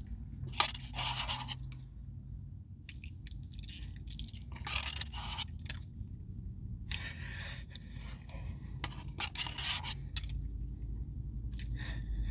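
A spoon scraping ice cream from the inside of a Dairy Queen Blizzard cup, in about five separate strokes a second or two apart.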